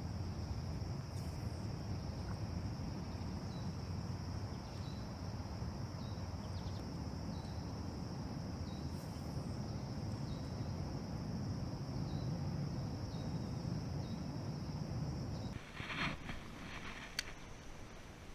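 Insects droning steadily in a high pitch, with small chirps repeating about once a second, over a dense low rushing noise. Both cut off together about fifteen seconds in, followed by a few light clicks.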